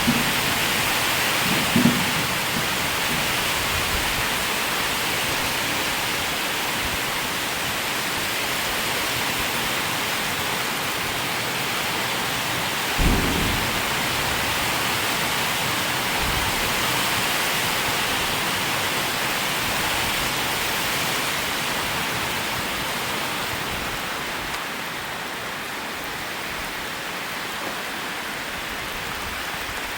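Steady, heavy rain, a dense hiss that eases a little near the end. A single short low thump comes about thirteen seconds in, with a smaller one about two seconds in.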